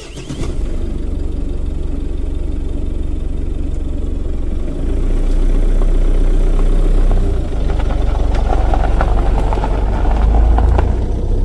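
Off-road vehicle's engine idling, low and steady, growing louder about five seconds in.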